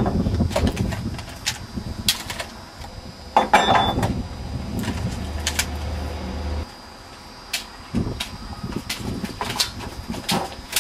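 Scattered knocks and thumps over a low rumble that cuts off abruptly a little past halfway.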